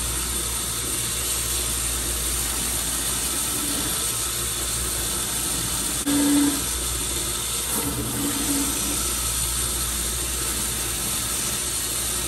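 Electric belt grinder running steadily with a low motor hum and a constant hiss, grinding down the edge of a work boot's sole to square it off. It gets briefly louder about six seconds in.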